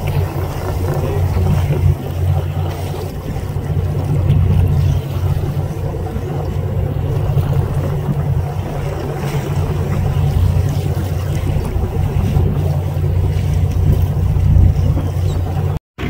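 Charter fishing boat's engine running steadily, a low drone under a haze of wind and water noise. The sound cuts out for a split second just before the end.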